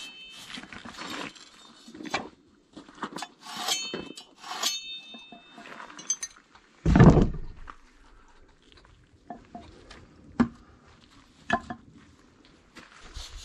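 Scattered clinks and light knocks of hand tools and a cultured stone sill cap being handled. Some of the clinks ring briefly, and there is one heavy thump about seven seconds in.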